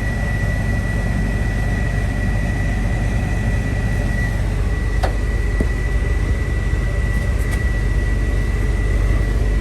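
Cat M316C wheeled excavator's diesel engine idling steadily, with a thin steady high whine over the drone. A single click about five seconds in.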